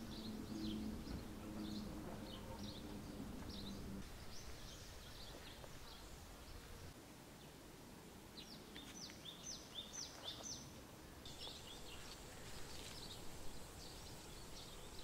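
Small birds chirping outdoors: scattered short high calls, with a quick run of downward-sweeping chirps about two-thirds of the way through, over a faint steady outdoor background.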